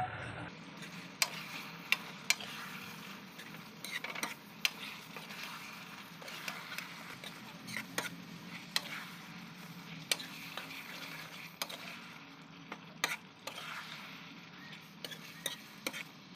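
Metal ladle stirring potato Manchurian balls through thick sauce in a steel kadhai, knocking and scraping against the pan at irregular intervals over a faint sizzle.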